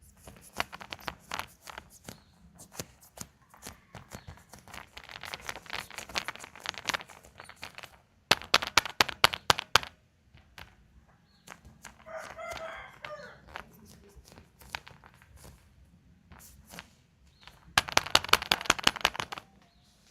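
Crinkling and tearing of candy-egg wrappers and clicks of plastic egg capsules being handled, with dense runs of crackling about eight seconds in and near the end. A short warbling pitched sound comes about twelve seconds in.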